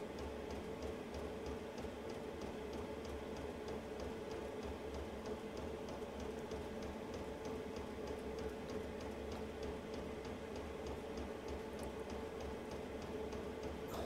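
Chinese diesel air heater running: its fan hums steadily while the fuel dosing pump ticks rapidly and evenly.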